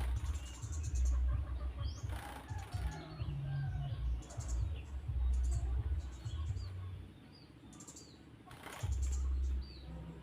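A bird chirping in short high calls scattered throughout, with three brief rushing bursts of noise, at the start, about two seconds in and near the end, over a low rumble.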